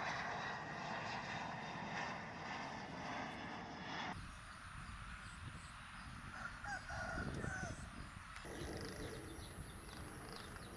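Outdoor background noise that changes abruptly twice. A steady noisy hum gives way to a quieter stretch with a few short rising and falling calls in the middle, then to a steady low background.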